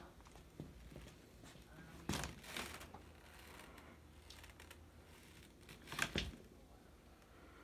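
Faint rustling and scraping handling noises in two short bursts, about two seconds in and again about six seconds in.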